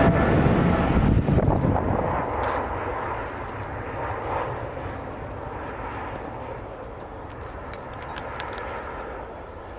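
Jet airliner's engines passing close by on landing: a loud roar with a whine, fading over the first few seconds to a low, steady rumble.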